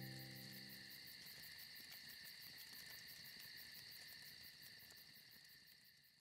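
Faint chorus of crickets chirping in a fast, even pulse, fading out gradually. The last of a guitar chord dies away in the first second.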